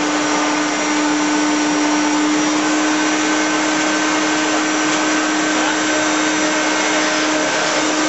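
Vacuum cleaner running steadily: an even rush of air with a constant motor hum.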